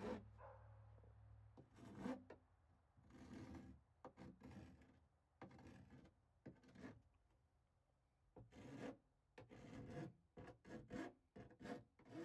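Hand file rasping in uneven strokes around the freshly cut edge of a hole-saw hole in aluminium, deburring it.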